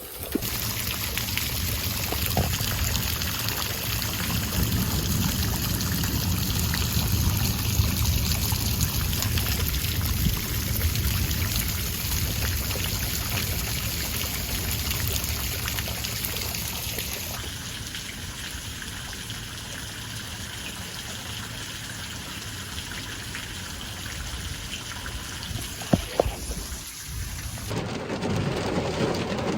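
Thunderstorm: a steady hiss of rain with a heavy low rumble that eases after about seventeen seconds. Two sharp knocks come near the end.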